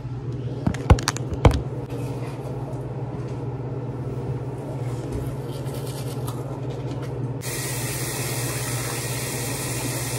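Manual toothbrush scrubbing teeth over a steady low hum, with a few sharp clicks about a second in. A louder hiss comes in suddenly about three-quarters of the way through.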